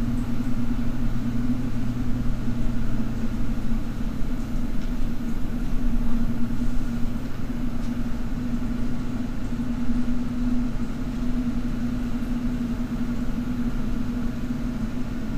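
Steady machinery hum from an anaerobic digester's sludge recirculation pump and digester-gas compressor running together, circulating the sludge to keep the digester mixed.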